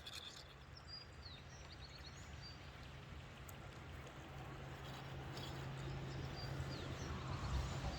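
Steady rushing noise of river water, growing slowly louder, with a steady low hum underneath. A few short bird chirps come about a second in and again near the middle.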